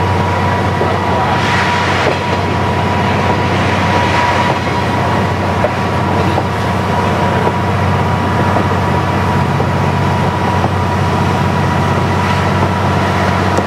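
KiHa 40 diesel railcar under way, its engine running with a steady low drone over the hum and rumble of the wheels on the rails.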